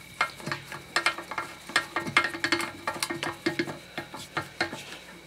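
Socket ratchet clicking in quick, irregular runs while tightening the bolts that hold a 5 hp Briggs & Stratton tank-top carburetor down onto its fuel tank.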